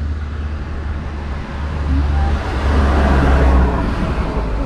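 A car passing on the street: a low engine rumble with tyre and road noise that swells to its loudest about three seconds in, then fades.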